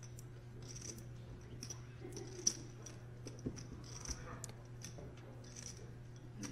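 Faint, irregular clicking of poker chips being handled and riffled at the table, with one sharper click about two and a half seconds in, over a low steady hum.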